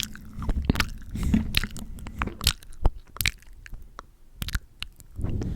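Close-miked mouth sounds from glossy lips: irregular wet lip smacks and clicks, several a second, as the lips press and part with the gloss on.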